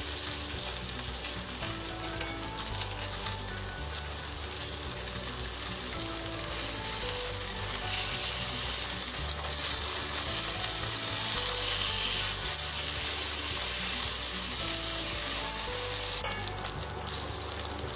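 Salmon fillets sizzling in hot oil in a nonstick frying pan, a continuous frying hiss that grows a little louder about halfway through.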